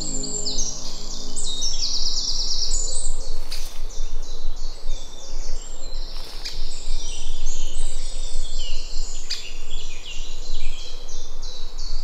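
Several songbirds singing at once, a busy overlapping mix of short chirps and whistles, with a fast trill of rapidly repeated notes about two seconds in.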